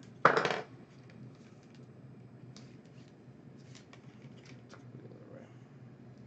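Hands handling trading cards and their plastic sleeves and foil packaging: a brief loud rustle about half a second in, then faint scattered clicks and soft rustles over a low steady hum.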